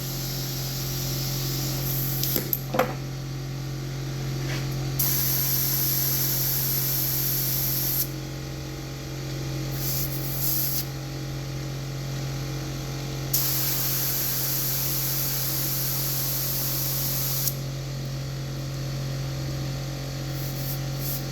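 Air hissing out of a dirt bike tire's valve stem in several bursts, the longest about four seconds, as the tire pressure is let down. A steady low hum runs underneath.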